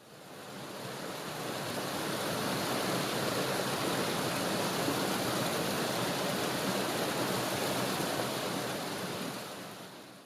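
Steady rushing noise of running water, fading in over the first couple of seconds and fading out near the end.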